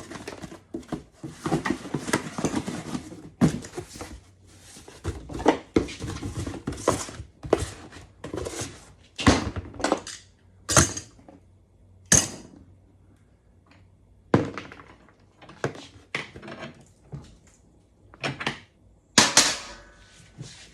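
Hand tools and loose metal hardware clanking and clinking against a metal windshield frame while seized parts are worked loose. The knocks come irregularly, with rattling runs in the first several seconds and spaced single clanks after that.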